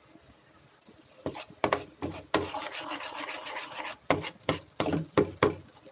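Kitchen handling noise while pancake batter is poured into a nonstick pan. After about a second there is a run of sharp knocks, then a stretch of scraping in the middle, then more knocks near the end.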